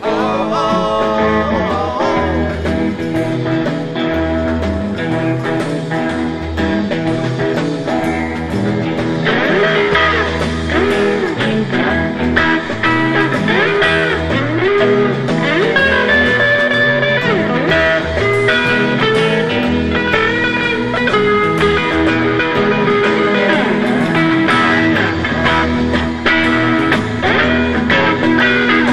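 Instrumental blues-rock passage: an electric guitar lead with many bent notes over a steady pulsing bass line.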